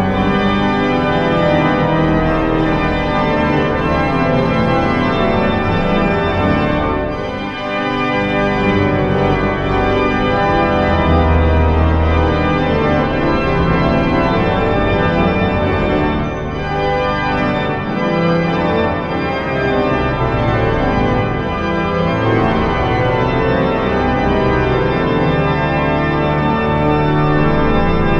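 Background music of sustained, organ-like chords that change every second or two.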